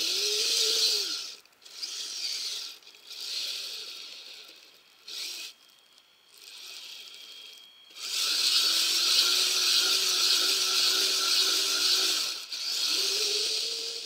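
Kyosho Blizzard RC snowcat's electric drive whining in several short bursts of throttle, its pitch rising and falling with speed. A longer steady run of about four seconds follows past the middle, then one more burst near the end.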